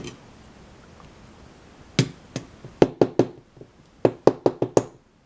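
Sharp knocks of a lock's metal housing being rapped against a hard surface to shake a stuck pin or spring out of its chamber: two single knocks, then a quick group of three, then a quick run of about five.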